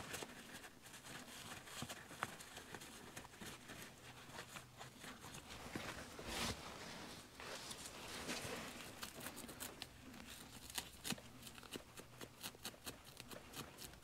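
Faint rustling and scattered small clicks of gloved hands wiping the ignition switch contacts with a cloth, with one slightly louder rustle about six seconds in.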